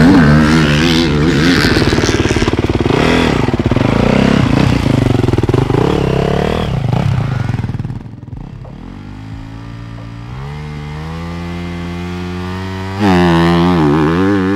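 Motocross bike engines revving loudly for the first several seconds. After a short lull, a Honda CRF250R four-stroke single is held at steady, slowly rising revs on the start line, then launches with a sudden jump in loudness about a second and a half before the end: a practice start, finding a consistent launch RPM.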